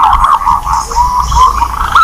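Green pigeons (punai) calling: many overlapping, wavering whistles at about one pitch, thinning to a few short rising notes in the middle, over a low hum. This is a punai lure-call recording, the kind played to draw the birds in for hunting.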